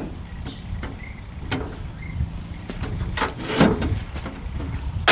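Scattered clicks and knocks with one louder scrape a little past halfway: hands working the glass and window parts out of a 1985 Chevy K10 pickup door.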